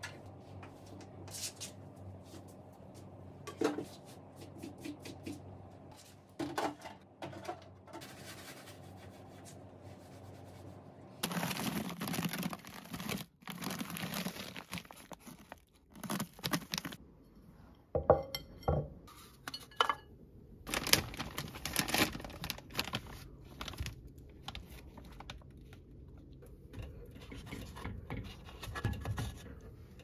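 Plastic packaging rustling and crinkling as it is handled, with scattered clicks and knocks.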